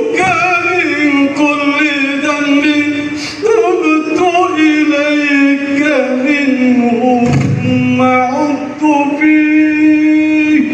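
A man's voice chanting an Arabic prayer in long, drawn-out melodic phrases with ornamented turns, amplified through the hall's loudspeakers. The pitch sinks slowly through each phrase, with new phrases starting about three and a half seconds in and again near nine seconds.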